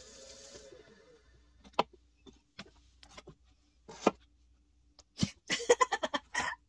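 An electric pottery wheel whirs briefly and stops, followed by a few sharp knocks of a wheel bat being lifted and set down. Near the end comes the loudest sound: a person's quick, high-pitched chuckling, sped up to double speed.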